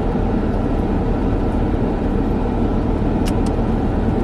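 Steady low rumble of a car cabin with the vehicle running, with two faint clicks a little after three seconds in.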